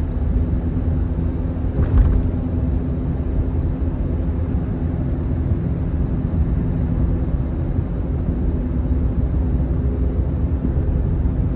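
Steady engine and road rumble heard inside a moving car's cabin, with a brief knock about two seconds in.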